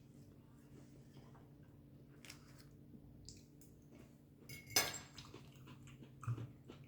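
Faint handling sounds: a few light clicks and knocks, the loudest a sharp clink about five seconds in and a smaller knock about a second later, over a steady low hum.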